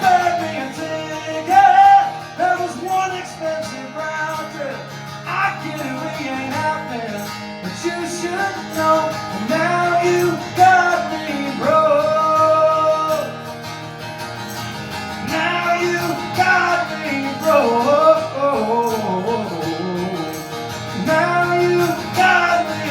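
Acoustic guitar strumming with singing: a country song.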